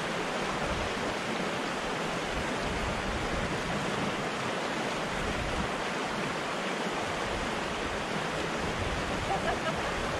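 Steady rush of a fast, clear spring-fed stream tumbling over a rocky riffle.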